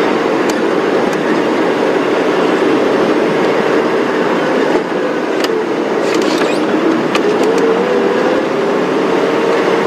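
Safari game-drive vehicle's engine running steadily as it drives, with a few sharp clicks and rattles over it.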